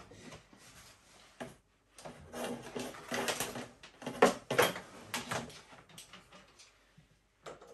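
Knocks and clatter of the electric piano being handled after reassembly. A scattered run of bumps and rattles starts about two seconds in, is loudest about four seconds in, and then thins out.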